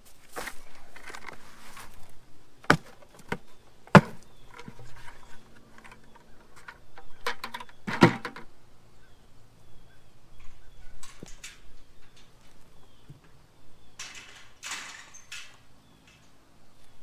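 Plastic 5-gallon buckets and potting soil being handled: rustling as soil is tipped out and sorted through in a wheelbarrow, with a few sharp knocks of plastic, clearest about three, four and eight seconds in.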